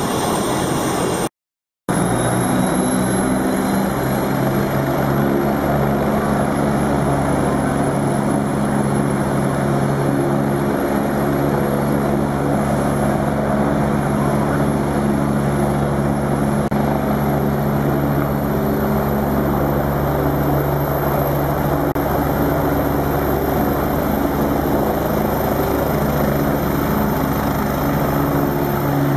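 Agusta A109 twin-turbine air ambulance helicopter running with its rotors turning: a steady rotor beat over a high turbine whine that slowly creeps up in pitch, with the helicopter lifting off near the end. The sound briefly cuts to silence about a second and a half in.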